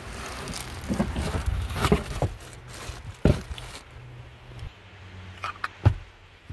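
Plastic bag crinkling and cardboard packaging rustling as a cordless pruner is unwrapped by hand, with several sharp handling knocks, the loudest just past three seconds and near six seconds. A low steady hum runs underneath and stops about three-quarters of the way through.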